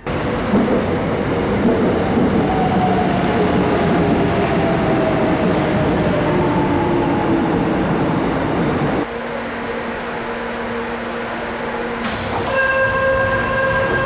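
Subway train on a station platform, its running noise carrying a slowly falling whine as it slows. About nine seconds in the noise drops away to a steady hum. Near the end a click is followed by a steady electronic tone.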